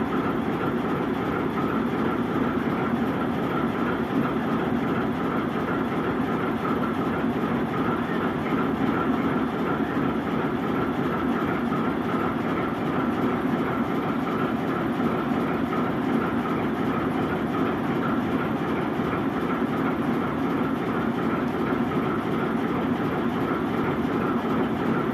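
ChME3 diesel shunting locomotive standing with its six-cylinder diesel engine idling, a steady, unchanging drone.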